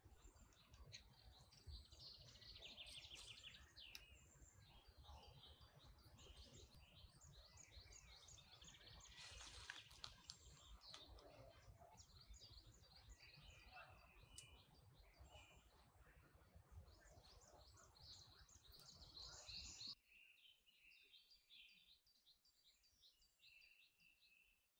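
Faint forest birdsong: many small birds chirping and trilling, over a low rumble that cuts off suddenly about twenty seconds in.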